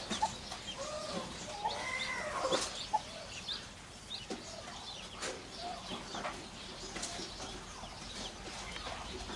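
A mother hen and her newly hatched chicks calling softly, with a few quiet arching calls in the first three seconds and scattered small clicks.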